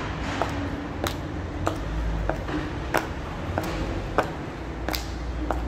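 Black patent stiletto heels, worn down to their metal nails, clicking on asphalt with every step: a very loud clip-clop at about three steps every two seconds.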